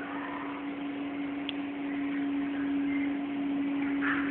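Small battery-powered toy helicopter's electric motor and rotor whirring at a steady pitch, growing a little louder over the first few seconds.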